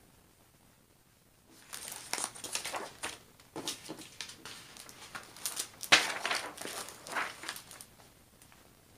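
Diamond painting canvas and papers crinkling and rustling as they are handled, starting about a second and a half in, with a sharp knock about six seconds in.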